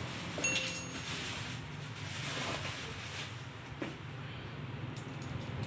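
Thin plastic wrapping rustling and crinkling as it is pulled off the valve head of a new fire extinguisher, with a short squeak about half a second in. A steady low hum runs underneath.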